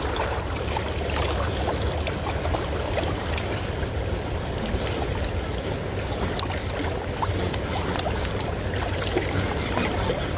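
Fast-flowing river current rushing steadily, with a few faint ticks scattered through it.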